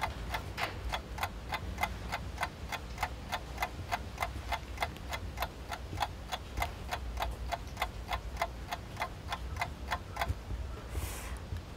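Even, steady clock-like ticking, about three ticks a second. A short hiss comes near the end.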